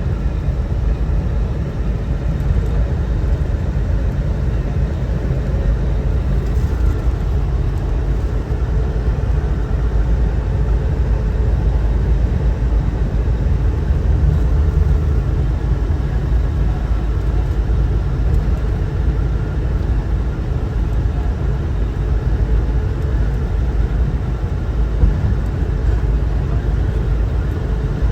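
Steady road and engine noise inside a moving car's cabin, a low rumble with no breaks.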